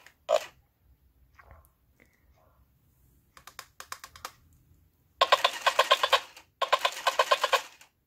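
Talking repeat-parrot toy: a few small clicks as the button on its base is pressed, then two short bursts of harsh, rapidly pulsing, garbled playback from its small speaker, which is going out.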